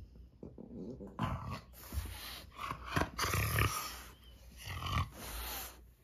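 French Bulldog making noisy breathing and throat sounds as it chews and mouths a rubber ring toy, in several bursts from about a second in.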